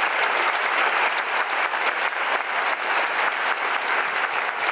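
A large theatre audience applauding steadily, dense clapping from many hands with no break.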